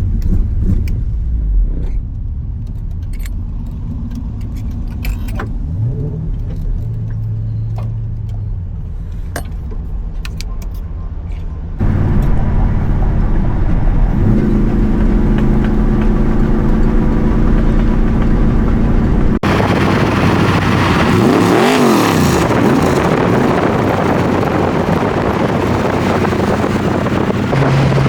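Car on the road: a steady engine drone and road noise, with light rattling clicks in the first part. The sound jumps abruptly louder about twelve seconds in and changes again a few seconds later, and about two-thirds through a pitch rises and falls back.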